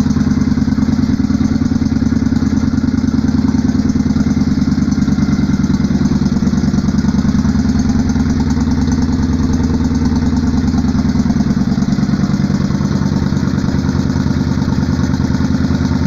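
Yamaha Virago XV535's air-cooled V-twin engine idling steadily with a loud, even rumble.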